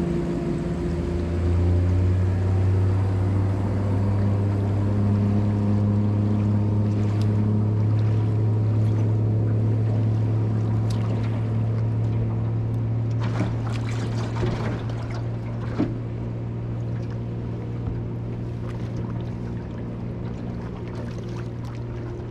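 Outboard motor of a passing boat running steadily with a low drone, growing gradually fainter through the second half. A few sharp knocks and splashes come partway through as the wake reaches the hull.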